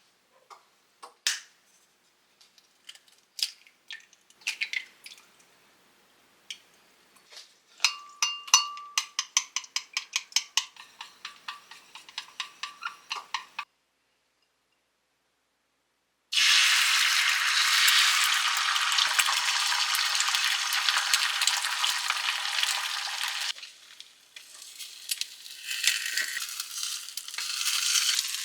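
Kitchen utensil sounds: scattered taps and clicks, then about six seconds of quick ringing clinks, about four a second, of stirring or beating in a bowl. After a short gap comes a steady loud sizzle of food frying in a hot pan, which turns quieter about seven seconds later and builds again near the end.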